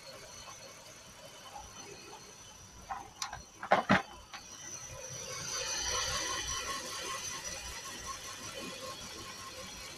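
Car engine idling, getting a little louder for a few seconds past the middle, with a quick cluster of sharp clicks or knocks about three to four seconds in.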